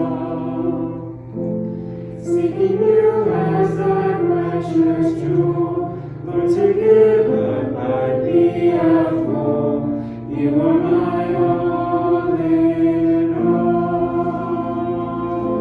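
Choir singing a slow worship song, with long held notes.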